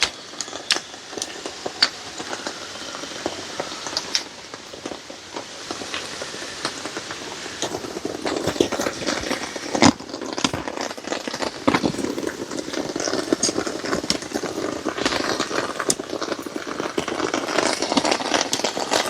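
Heavy rain shower falling through trees, a steady hiss scattered with sharp drips and drop hits close by, growing louder in the second half.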